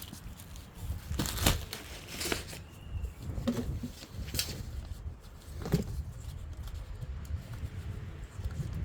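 Packaging being handled and opened: irregular rustles and scrapes, a few sharper ones scattered through, over a low handling rumble.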